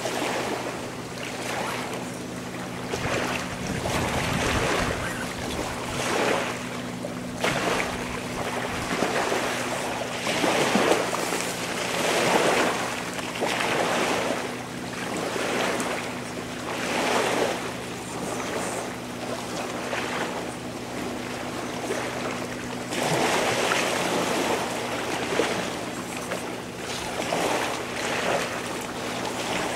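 Small waves washing onto a stony shore, swelling and falling back every couple of seconds, over a steady low hum.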